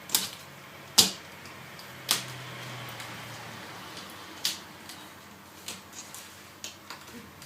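Sharp clicks and knocks of MacBook Pro hinge-area parts being handled and fitted back in place: four louder clicks in the first few seconds, then a string of lighter ticks.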